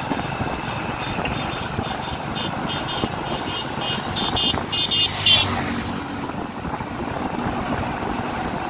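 Steady wind rush and engine and road noise while riding a two-wheeler along a highway. A brief run of rapid, high-pitched pulses rises between about two and a half and five and a half seconds in, then stops suddenly.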